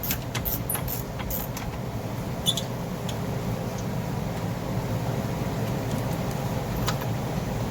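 Hand tools working the brake caliper bolts: a quick run of light metallic clicks in the first second and a half, then a few single ticks, over a steady low shop hum.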